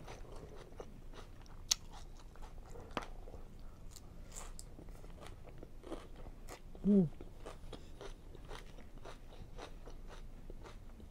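Close-up chewing and crunching of a Chick-fil-A Cobb salad's lettuce and crispy chicken, with sharp clicks of a metal fork against the clear plastic salad bowl. A short hummed "mm" about seven seconds in.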